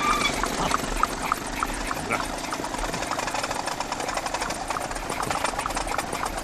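VéloSoleX 3800 moped's 49 cc two-stroke engine idling with a fast, even putter.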